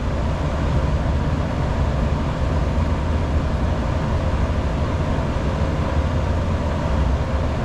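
Steady low drone of rooftop air-conditioning equipment running, with a faint even hum from its fans and motors.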